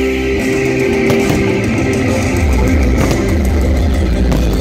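Loud rock music with electric guitar, playing steadily.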